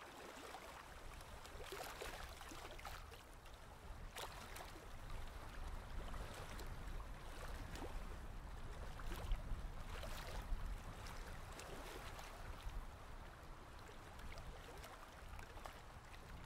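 Paddle strokes of an inflatable kayak dipping into calm water, with water splashing and trickling off the blades, repeated through the stroke.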